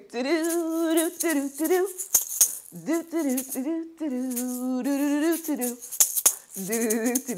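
A woman humming a slow wordless tune with held, wavering notes, shaking a pair of maracas along with it.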